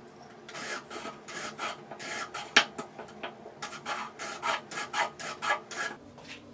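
Small hand plane shaving a wooden edge in quick short strokes, about three a second, each a brief scrape of the blade through the wood; the strokes stop about six seconds in.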